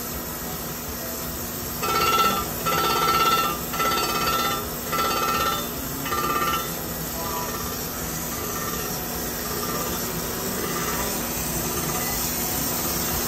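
Crankshaft grinder wheel grinding a rod journal on a 454 big block Chevy crankshaft, which is being taken .010 undersize. It gives a ringing grind that pulses about once a second as the turning crank presses against the wheel. The pulses die away about two-thirds of the way through, leaving the steady run of the machine.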